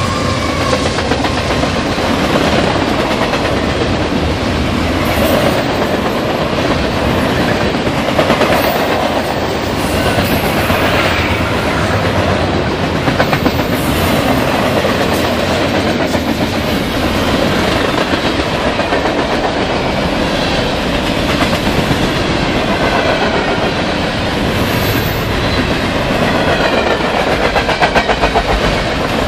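Loaded Norfolk Southern mixed freight train rolling past close by: a steady, loud rumble of steel wheels on the rails with a rhythmic clickety-clack as wheel sets cross the rail joints. The engine of the last locomotive fades out in the first moments.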